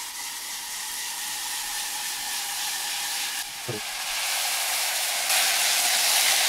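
Liquid nitrogen boiling with a steady hiss around a plastic container of alcohol being frozen in it, the hiss growing louder and brighter toward the end.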